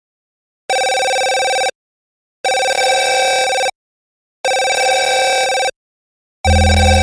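Electronic telephone ringing: three rings of about a second each, separated by silent gaps. Near the end, music with a heavy bass comes in.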